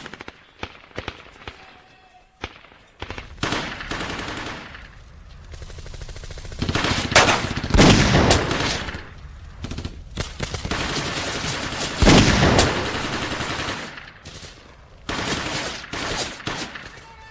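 Blank-fired machine-gun bursts and scattered rifle shots, rapid rattling volleys alternating with single cracks, with two louder heavy bangs in the middle.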